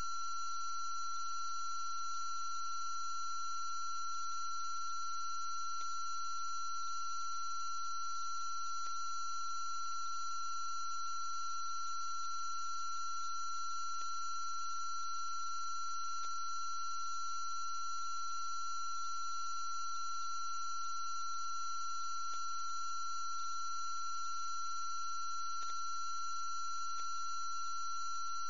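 A steady, unchanging high electronic tone with fainter higher tones above it and a low hum beneath, broken only by a few faint ticks.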